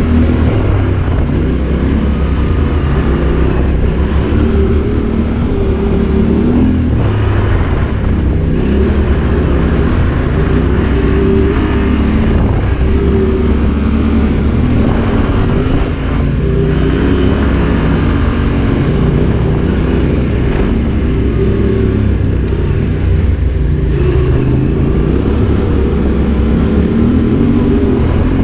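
Yamaha Ténéré 700 parallel-twin engine running under load on a dirt climb, its revs rising and falling with the throttle, with a few brief knocks from the bike over the rough track.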